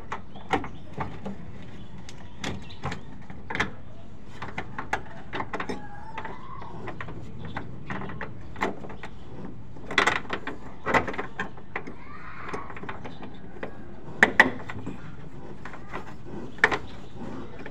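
Scattered clicks and knocks of hands fitting fuel hoses and plastic connectors back onto a fuel pump on top of a fuel tank, over steady background noise. The sharpest come about ten seconds in, then a quick pair of clicks near fourteen seconds.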